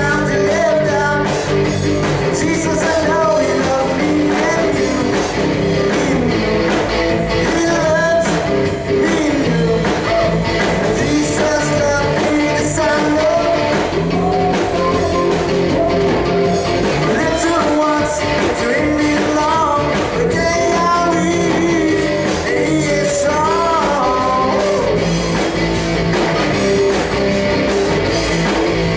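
Live rock-style gospel song: a man singing lead into a microphone over his own electric guitar, backed by a drum kit with cymbals.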